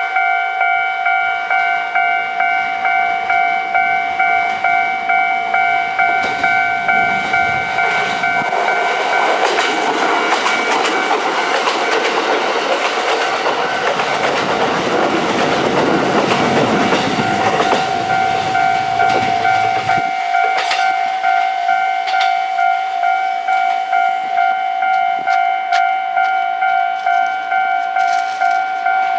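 Japanese level-crossing alarm ringing in a steady, rapidly repeating electronic clang throughout, while two Kintetsu trains, a 1259 series EMU and a 50000 series Shimakaze limited express, pass each other over the crossing. Their rumble and wheel clatter swell from about six seconds in and cut off about twenty seconds in.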